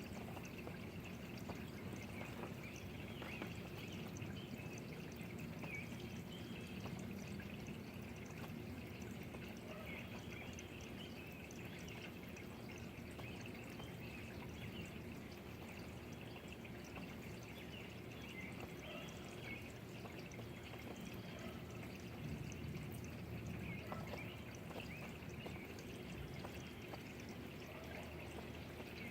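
Steady rain with water trickling and dripping, a continuous even hiss flecked with small drips.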